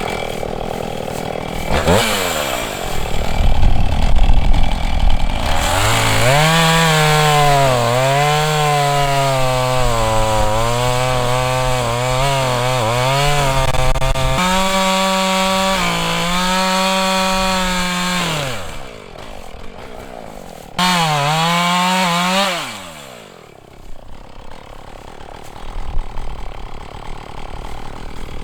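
Two-stroke chainsaw revving up and cutting through a log at full throttle, its pitch sagging and recovering under load. It then drops back to idle, gets one more short burst of throttle and winds down.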